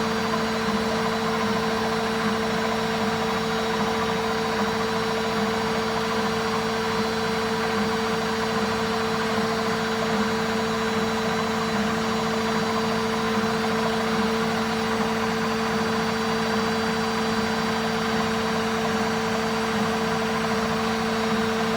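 Washing machine on its spin cycle, the drum turning at a steady high speed: a constant motor whine over a rushing hum, unchanging throughout.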